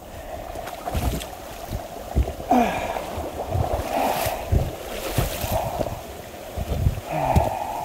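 Footsteps sloshing and splashing through shallow beaver-pond water and wet leaf litter, in uneven steps.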